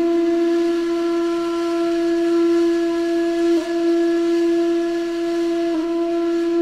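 A flute holding one long, steady note, with a brief catch in the pitch about halfway through and another near the end.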